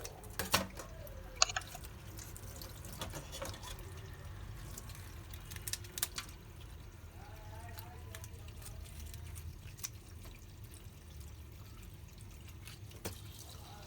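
Faint dripping water with scattered light clicks over a low steady hum, typical of kitchen work at a sink.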